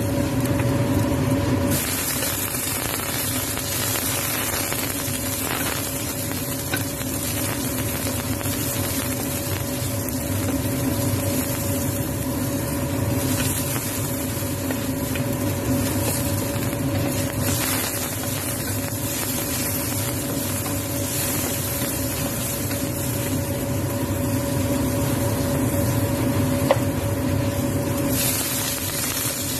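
Oil sizzling in a wok as food is stir-fried with a wooden spatula, over a steady low hum. The sizzle drops away near the end.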